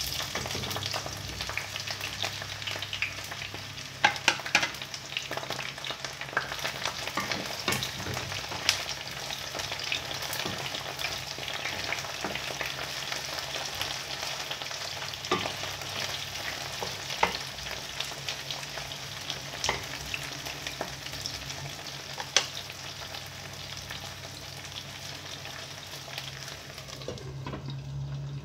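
Eggplant slices sizzling in hot oil in a frying pan, the sizzle starting suddenly as they go in. A wooden spatula stirs them, knocking against the pan now and then. Near the end the sizzle turns muffled as a glass lid goes on.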